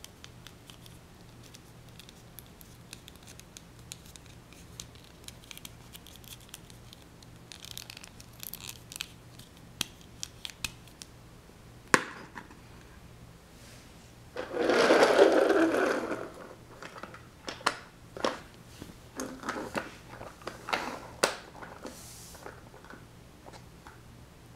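Plastic My Little Pony toy figure and toy car being handled on a wooden floor: scattered small clicks, taps and scrapes. A sharp click comes about twelve seconds in, and a louder rushing noise follows a couple of seconds later, lasting about a second and a half.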